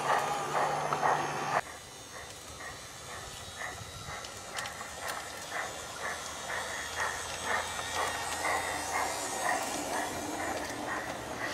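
Piko G-scale model steam locomotive running on garden railway track: for about the first second and a half its motor and gears whir loudly close by, then, after a sudden drop, a quieter steady clicking rhythm of a little more than two a second as the train rolls along.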